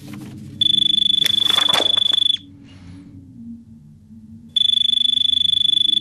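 A high-pitched electronic beep tone sounding in two long beeps of about two seconds each, two seconds apart. The first beep flutters rapidly and has some crackling under it.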